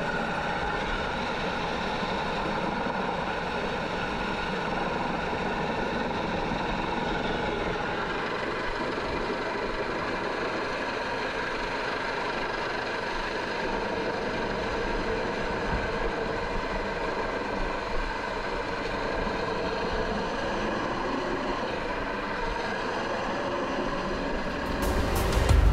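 Coast Guard rescue helicopter hovering: steady turbine whine over rotor and wind noise, with the sound shifting slightly about eight seconds in. Music starts in the last second.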